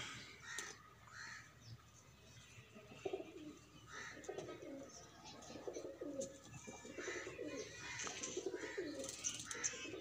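A flock of domestic pigeons cooing: many overlapping coos that begin about three seconds in and come more and more often, with short higher-pitched calls mixed in.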